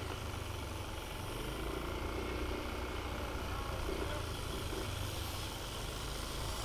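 Steady low rumble of wind on a bike-mounted action camera's microphone, mixed with the tyres of a road bike rolling over a concrete road.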